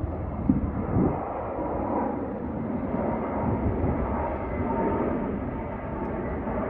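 Airbus A380's four jet engines on landing approach passing low overhead: a steady, broad rumble with a faint whine. Two brief thumps come about half a second and a second in.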